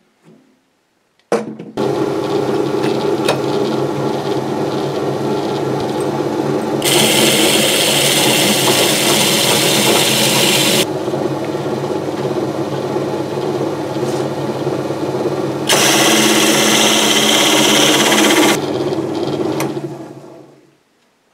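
Power drill spinning a hole saw through a thin, oiled steel plate. The motor starts with a click about a second in and runs steadily. Twice the sound turns louder and harsher as the saw bites into the metal, and the motor winds down near the end.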